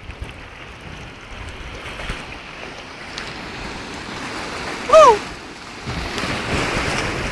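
Steady wind and sea-water noise, with one short rising-then-falling call about five seconds in.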